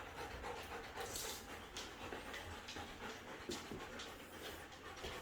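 Siberian husky panting faintly in short, uneven breaths.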